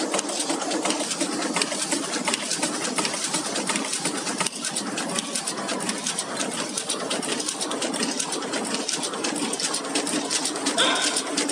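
Bouillon-cube carton packing machine running: a fast, steady clatter of clicks over a constant low hum. A short, louder, brighter sound comes near the end.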